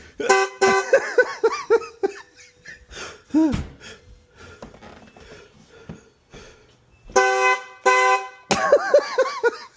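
A drill-powered train horn sounds in short chord blasts: one just after the start, then two in quick succession about seven seconds in. Breathless laughter follows each.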